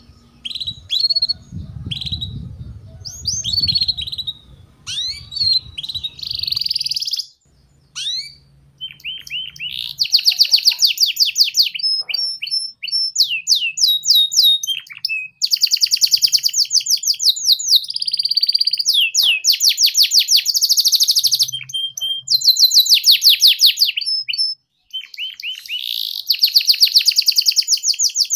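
Domestic canary singing. It starts with scattered chirps and short whistles, then about ten seconds in breaks into long, fast trills of rapidly repeated notes, in phrases a second or two long with brief pauses between them.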